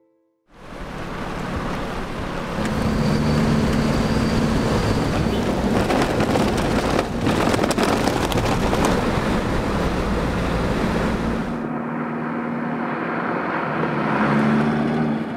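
A 4x4 driving on a desert gravel track: steady engine and tyre noise with wind, heard close from on board, with a few jolts and knocks. About twelve seconds in the sound changes to the 4x4 driving past outside, its engine swelling as it nears, with wind on the microphone.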